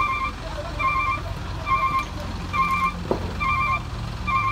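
A vehicle's reversing alarm sounding a warbling beep a little faster than once a second, five times, over a diesel truck engine running at idle.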